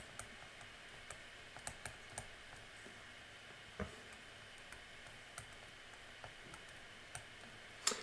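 Faint, irregular clicks and taps of a stylus on a tablet screen while figures are written by hand, with one louder tap about four seconds in.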